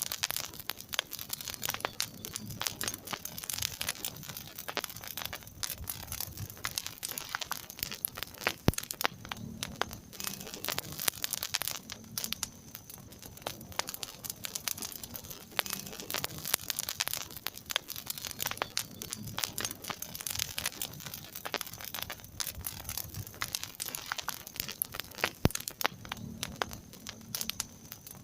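Wood fire crackling in a fireplace: a steady stream of small, irregular snaps and pops, with a few sharper, louder pops standing out.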